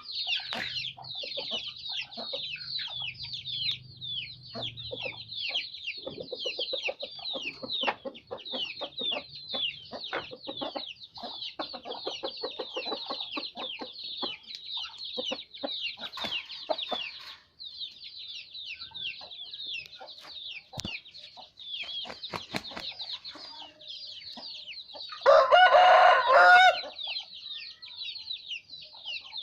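Chickens: dense high chirping throughout, with clucking, and a rooster crowing once about 25 seconds in, the loudest sound, lasting about a second and a half.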